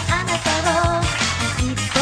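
J-pop song: a girl's voice singing a melody over a band accompaniment with bass and a steady drum beat.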